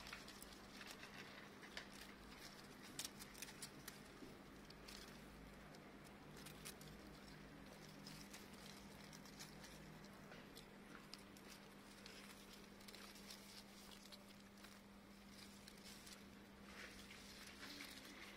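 Faint rustling and light ticking of a grass stem and dry vegetation being swished over the ground, with a kitten pawing at it, over a low steady hum.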